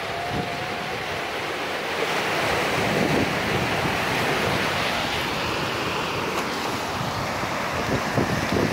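Ocean surf breaking and washing over a rocky shore, a steady rush that swells a little about two seconds in, with wind buffeting the microphone.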